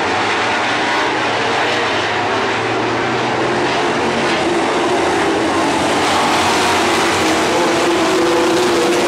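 A pack of dirt-track stock cars' V8 engines running flat out around the oval, a loud continuous multi-engine drone that grows a little louder and stronger in pitch in the second half as the field comes off the turn.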